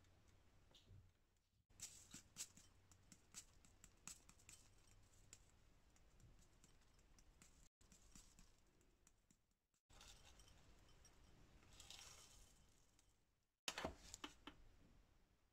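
Faint small clicks and taps of a metal spoon in a ceramic bowl as sauce is spooned over the beef, then a soft patter of toasted sesame seeds sprinkled onto the meat, with a few louder clicks near the end.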